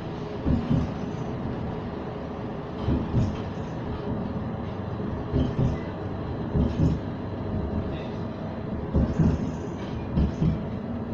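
CAF Urbos tram running along the street, heard from inside the passenger car: a steady rumble with irregular low thumps.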